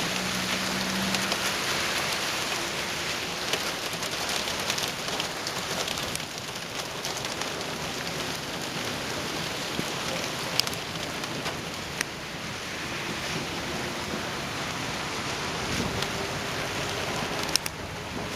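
Heavy rain pelting a car, heard from inside: a steady hiss with scattered sharper drop hits.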